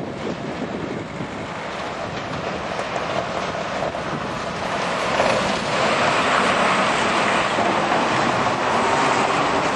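Road noise and wind from a moving vehicle, a steady rushing hum that grows louder about halfway through.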